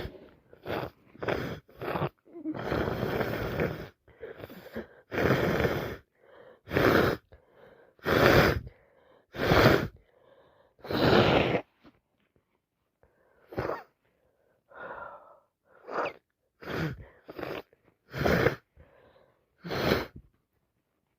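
A woman sneezing over and over in a fit, wet sneezes with gasping breaths in between, well over a dozen bursts about a second apart, a few of them longer and drawn out. She puts the fit down to a cold or allergies and is not sure which.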